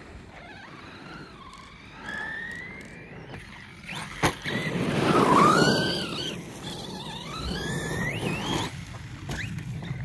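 Electric motor of an RC monster truck (Rival MT8 on a 6S battery) whining as it drives, the pitch rising and falling with the throttle. There is a sharp knock about four seconds in, and then the loudest, rougher burst of running around the middle.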